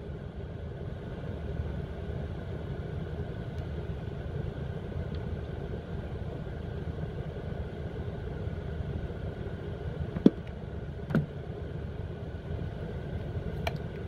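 A steady low mechanical hum, with a few sharp clicks about ten and eleven seconds in and once more near the end as a plastic drawer push-catch latch is handled.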